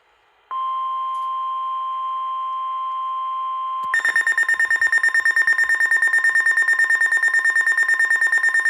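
NOAA Weather Radio alert tones: a steady single warning alarm tone starts about half a second in, then at about four seconds a louder, higher-pitched, rapidly pulsing alert beeping takes over. The tones signal that a weather warning is about to be broadcast.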